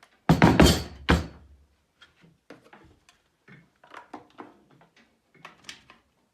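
A loud scraping clatter lasting under a second, followed by scattered light knocks and taps of objects being handled.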